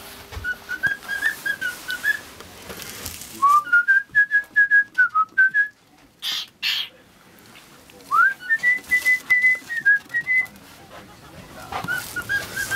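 A person whistling a tune in several short phrases of clear, held notes with small slides between them. Two brief hissy noises come between the phrases about halfway through.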